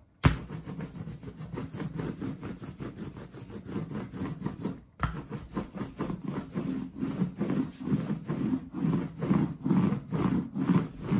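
Rhythmic back-and-forth rubbing or rolling strokes by hand, about two a second, getting louder toward the end, with a sharp knock just after the start.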